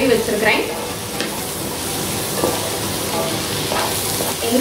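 Mushrooms and sliced onions sizzling as they fry in oil in a nonstick pan, stirred with a spatula, with a couple of light taps of the spatula on the pan. They are being sautéed until their raw smell is gone.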